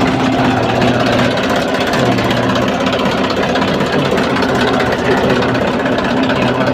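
Tractor engine idling steadily after starting on its cleaned and refitted self-starter, which before the repair only clicked.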